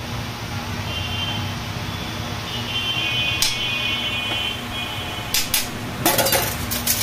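Sharp clinks of kitchen utensils, with a brief clatter of knife work about six seconds in, over a steady background hum.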